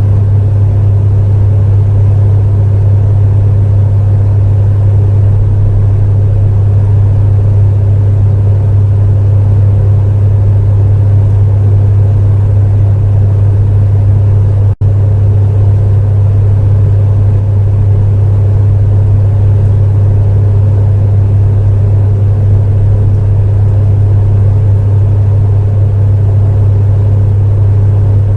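Space heater running steadily, a constant low hum over an even rushing noise. About halfway through the sound cuts out for a split second, a glitch in the recording.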